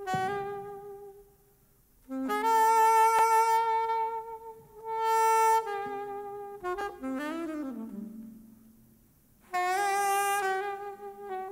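Saxophone playing slow, long held notes in short phrases separated by brief pauses, with a bending, sliding passage a little past the middle.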